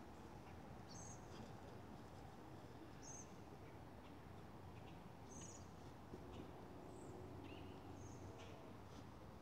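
Near silence with faint, short, high bird chirps every second or two.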